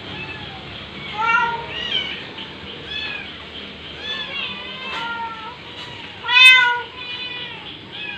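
Several kittens meowing, many short calls one after another and sometimes overlapping, the loudest about six and a half seconds in.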